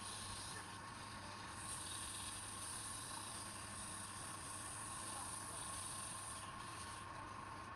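Wood lathe running with a steady motor hum and a thin high hiss that swells and fades.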